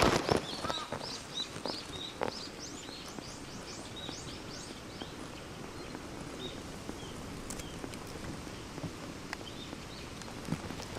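Small birds chirping: a quick run of short, high, rising chirps in the first few seconds, then scattered chirps over a steady low outdoor background.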